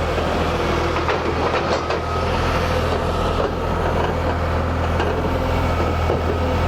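1998 New Holland LX865 turbo skid steer running and manoeuvring: a steady turbo diesel engine sound with metallic clanks and rattles, a cluster about a second in and another near five seconds.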